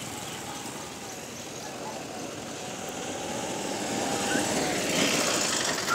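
Street traffic noise: a steady wash of engine and road noise that grows louder over the last couple of seconds.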